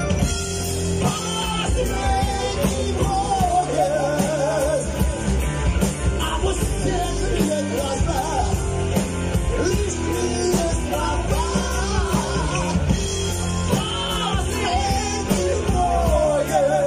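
Live rock band playing: electric guitar, bass guitar, keyboards and drum kit, with a lead vocal singing over the band from about a second in.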